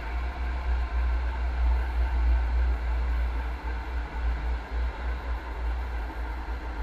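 MAX light rail train running along the track, a steady low rumble with a fainter hiss above it.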